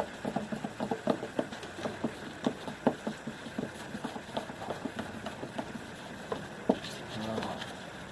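Paper towel rubbing wax onto a plastic headlight lens by hand, a series of short, uneven squeaky strokes a few times a second.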